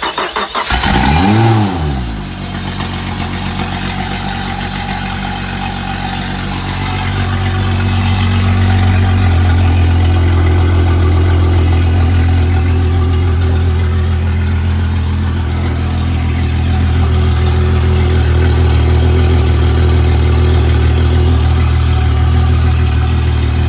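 Honda 250 hp fuel-injected V6 outboard running just after starting: its revs flare up and drop back about a second in, then it settles into a steady idle, running a little louder from about eight seconds on. It is the engine's first run in a long time, now that a missing battery ground connection has been restored.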